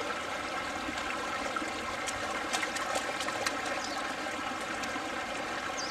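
Small creek running, a steady babble of flowing water, with a few faint ticks about two to three and a half seconds in.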